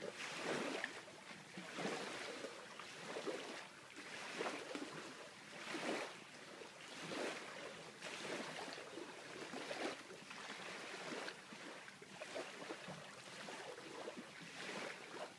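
Small waves lapping and sloshing against a dock, swelling and fading every second or two.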